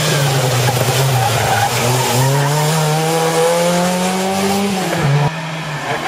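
Volkswagen Golf Mk1 rally car at full throttle, its engine pitch rising steadily through a gear and dipping briefly near the end. The sound breaks off abruptly about five seconds in, and another stretch of engine noise follows.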